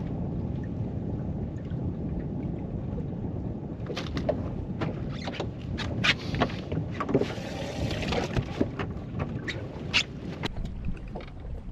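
Steady low wind and water noise aboard a bass boat. From about four seconds in comes a run of short knocks and clatters as a smallmouth bass is handled on the deck.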